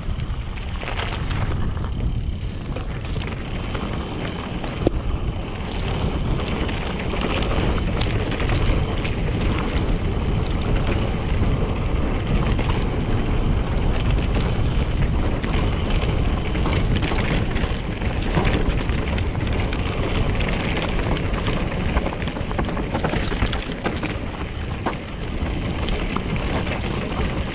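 Mountain bike descending fast on a dirt trail: wind rushing over the microphone and a steady rumble of tyres on dirt, with scattered clicks and knocks from the bike over the rough ground.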